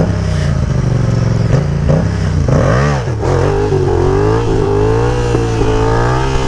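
Yamaha MT-07 parallel-twin engine running, revved quickly up and back down about two and a half seconds in as the clutch is dumped for a clutch-up wheelie, then pulling under wavering throttle.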